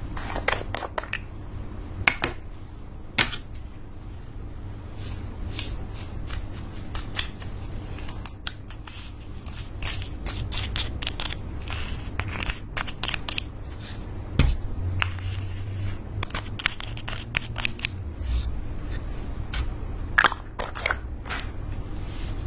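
Clicks, taps and scrapes of a small cosmetics jar being opened and handled, and a plastic spatula scraping loose glitter pigment out of it, over a low steady hum.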